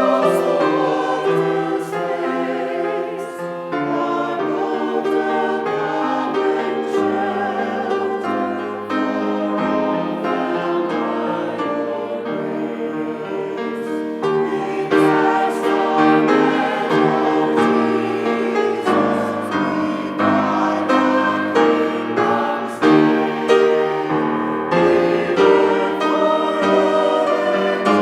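A group of voices singing a hymn together with instrumental accompaniment, the bass line moving from chord to chord.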